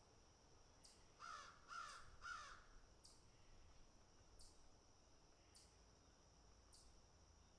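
Crow cawing three times in quick succession about a second in. Underneath runs a faint steady high hum with a short high tick about once a second.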